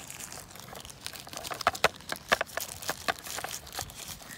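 Plastic bag crinkling and crackling in irregular sharp snaps as a wrapped charging block is worked out of it, loudest about two seconds in.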